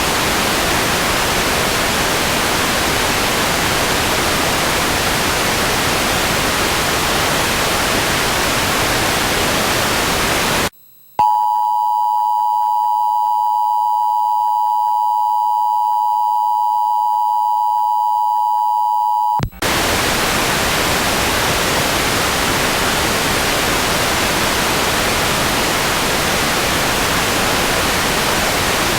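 Steady television static hiss. About eleven seconds in it cuts out for a moment and a steady two-note alert tone, the Emergency Alert System attention signal, sounds for about eight seconds before the static hiss returns.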